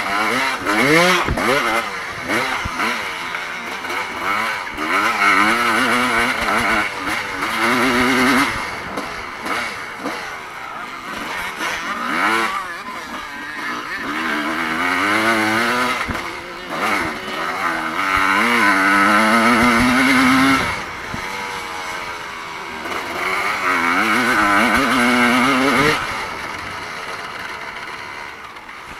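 Evo-class motocross motorcycle engine at race speed, its pitch climbing and falling again and again as the throttle is worked. It is loud, and the revs cut back sharply a few times.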